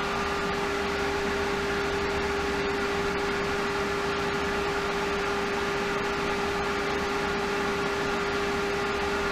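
Hayward Super Pump VS variable-speed pool pump running steadily at its maximum speed, 3,450 RPM: an even hum with one held tone over a rushing noise.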